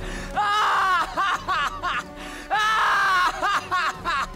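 A man laughing loudly and triumphantly, a villain's laugh: two long held laughs, each followed by quick short ones, over background music.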